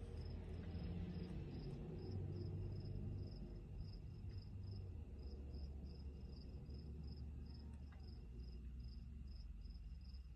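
Faint cricket chirping, short even chirps about three a second, over a low steady hum.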